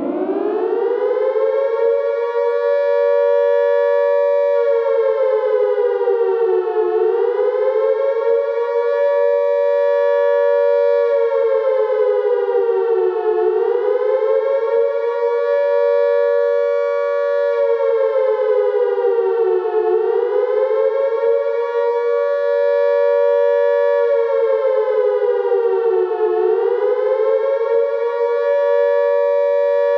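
British air-raid style siren wailing: a loud, steady high note that sags in pitch and climbs back about every six and a half seconds, four times in all.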